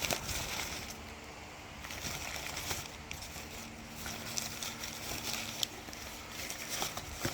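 Light rustling and small knocks as a mailed package is unpacked by hand, over outdoor background noise, with a faint steady hum coming in about three seconds in.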